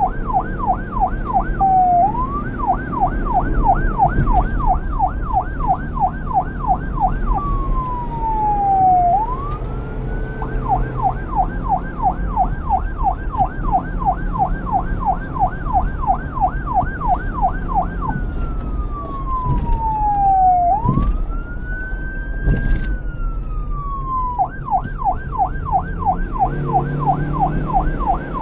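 Electronic police siren switching between a fast yelp, about three to four sweeps a second, and a slower wail that rises and falls, over a low rumble.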